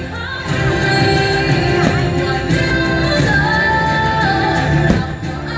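Fireworks-show soundtrack: loud, steady music with singing.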